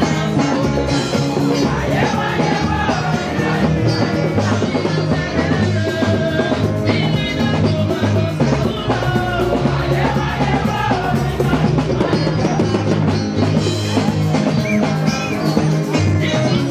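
Music with singing over a steady bass and drum beat.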